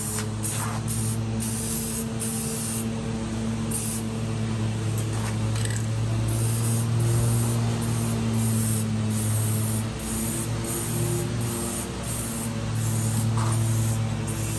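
Aerosol spray-paint can spraying in a run of short hissing bursts, with a steady low hum underneath.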